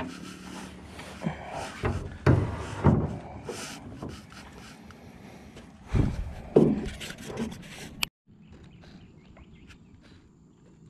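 Handling noise in a small aluminium boat: rubbing and several heavy knocks as a hand works the camera and gear. About eight seconds in it cuts off suddenly to a quieter open-air background with a faint steady high tone.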